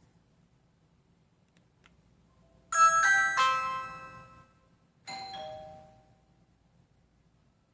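Ring Video Doorbell Pro's electronic chime sounding after its button is pushed, a bright tune of several tones that changes note partway and fades. About two seconds later, the house's original mechanical doorbell chime is struck once and rings out.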